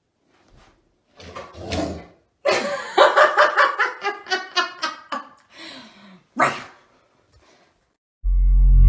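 A large white fluffy dog vocalizing in a string of short, pitched yips and whines, with a falling whine near the end. Music comes in abruptly near the end.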